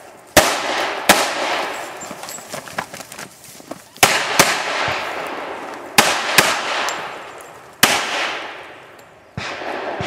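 Handgun shots fired one after another during a shooting stage: about seven sharp reports, some as quick pairs about half a second apart, each followed by a long echo that fades out.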